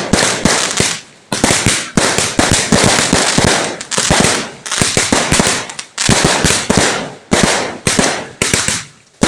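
Firecrackers going off in rapid strings of sharp cracks, many to the second, in runs broken by brief pauses.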